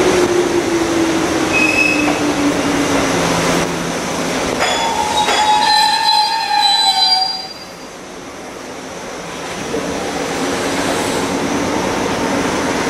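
Tobu 634-type electric train braking to a stop in an underground station: a motor whine falling steadily in pitch, then a high brake squeal for two or three seconds that cuts off as the train halts, about seven seconds in. A steady hum of the standing train follows.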